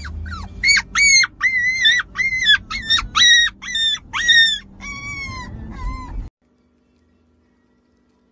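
Husky puppy howling in a run of short, high-pitched calls, about two a second, each rising and then falling, with the last few lower in pitch, over a low background rumble. The sound cuts off suddenly about six seconds in, leaving near silence with a faint hum.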